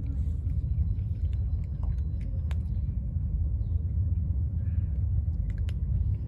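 Steady low rumble of wind buffeting the microphone, with a few faint crunches of cats chewing dry kibble.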